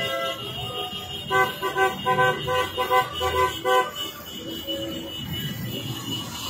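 Car horns honking in a quick, even rhythm, about four short blasts a second, for some two and a half seconds starting just over a second in, over the rumble of slow street traffic.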